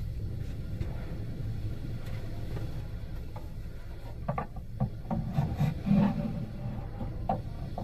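Rubbing and knocking noises over a steady low rumble. The knocks come irregularly in the second half and are loudest about five to six seconds in.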